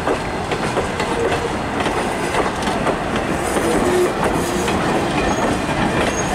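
Railroad passenger coaches rolling past close by, their wheels clicking over the rail joints in an uneven clatter.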